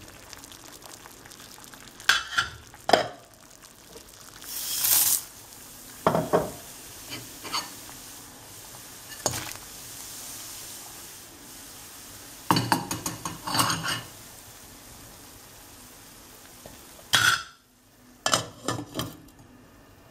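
Kitchen clatter of china plates and a spoon knocking and scraping against a stainless steel pot as ingredients are tipped into near-boiling water, over a steady hiss of the water heating on a gas burner. The loudest moment is a brief hissing rush about five seconds in. A glass pot lid is set down with a clink near the end.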